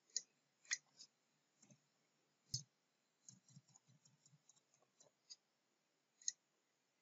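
Faint clicks of a computer mouse and keyboard: a handful of separate sharp clicks, with a quick run of about a dozen keystrokes a little over three seconds in.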